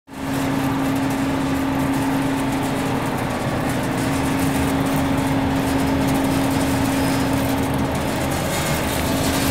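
Belt-type nut roasting machine running: a steady mechanical hum with one strong low tone over motor and fan noise, unchanging throughout.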